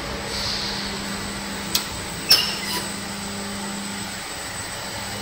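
Barth Tornado 60 coffee roaster running with its new burner lit: a steady roar of flame and blower with a low hum under it. Two sharp clicks come about two seconds in.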